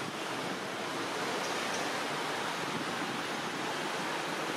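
Steady, even rushing noise of outdoor background ambience, with no distinct calls or events.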